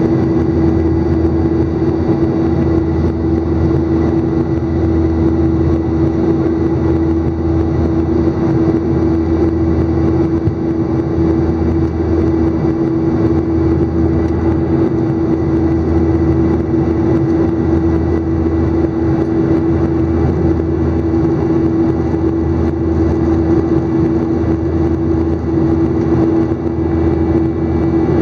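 Jet airliner engines heard inside the cabin during the climb after takeoff: a steady drone with one strong hum running through it.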